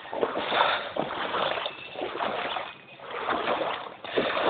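Floodwater splashing and sloshing in repeated surges, about one every second and a half.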